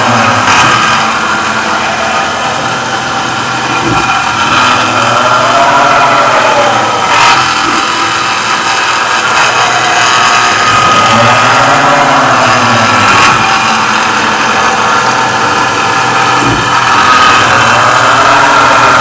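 CNC machine milling the ports of a big-block Chevrolet 572 cylinder head. The cutting pitch rises and falls in a smooth cycle about every five to six seconds, over a steady high whine and hiss.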